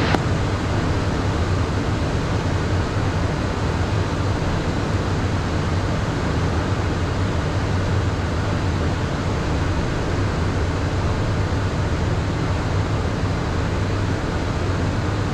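Steady cockpit noise of a Beechcraft Premier 1A business jet in the climb: an even rush of airflow with a low hum underneath, unchanging throughout.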